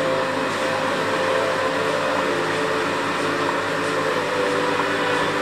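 Aquarium pump running: a steady machine hum under an even hiss of moving water and air.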